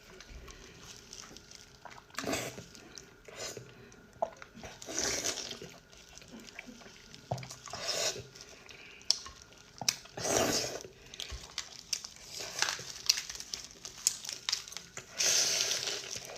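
Close-miked eating sounds: a person chewing and slurping noodles and fatty pork, with wet bursts every two to three seconds and small mouth clicks between them.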